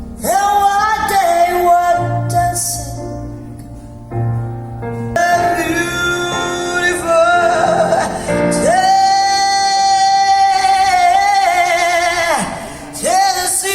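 Recorded vocal music played back over a hi-fi loudspeaker system with a subwoofer stack: a singer holds long, wavering notes over low bass notes.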